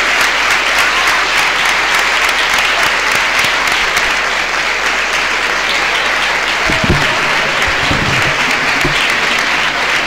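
A large audience of students applauding, steady sustained clapping throughout, with a few low bumps about seven to nine seconds in.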